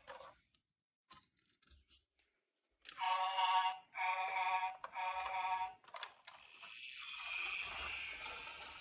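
Marbles on a wooden marble run: a few light clicks, then about three seconds of ringing, music-like pitched tones in three pulses, then marbles rolling along a wooden track with a rising hiss near the end.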